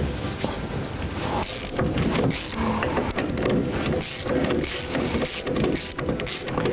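Hand tools working on the internals of a car door: irregular metallic clicking and rattling.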